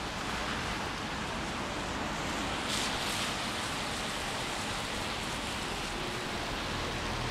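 Steady hiss of rain falling on a city street, with a brief louder swish about three seconds in.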